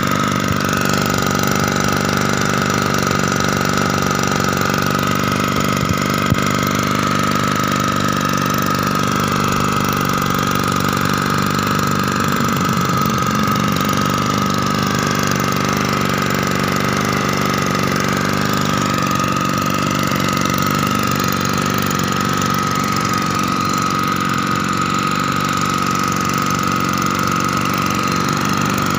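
The small two-stroke engine of a 1-inch Yamamax Pro irrigation water pump running steadily at constant speed, with a high steady whine over the engine note.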